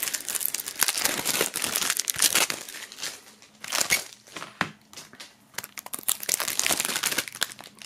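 Plastic shrink-wrap film crinkling and crackling as it is pulled off CDs and crumpled by hand. It comes in bunches, with a brief pause after about three seconds and another lull in the middle.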